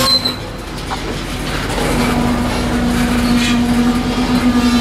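Freight cars rolling slowly past, steel wheels running on the rails with a few short clicks. About two seconds in, a steady tone comes in over the rumble and holds.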